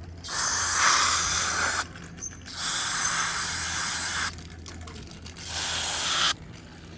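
Aerosol throttle body cleaner spraying onto a throttle body in three hissing bursts, the first two about a second and a half each and the last under a second, to loosen years of old oil and grime.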